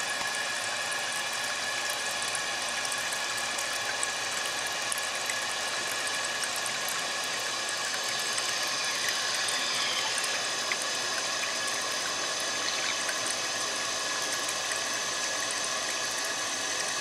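A new plastic float-and-rod ballcock fill valve refilling a toilet tank after a flush: water rushing steadily into the tank, with a faint steady whistle from the valve.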